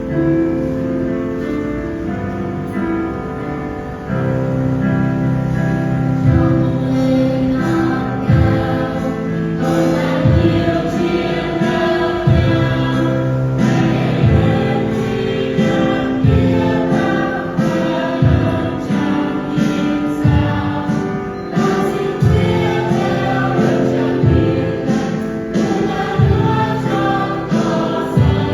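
Church choir singing a gospel hymn with instrumental accompaniment. A bass line and a steady beat come in about four seconds in.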